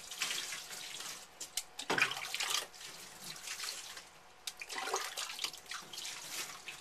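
Water poured from a plastic pitcher splashing over a wet West Highland terrier puppy in a sink as he is rinsed, in several pours a couple of seconds apart.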